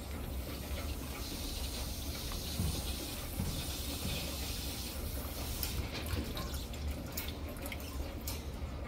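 Tap water running from a utility-sink faucet into a rubber rock-tumbler barrel of rocks and polish powder. The flow fades out about five and a half seconds in, followed by scattered light clicks and knocks.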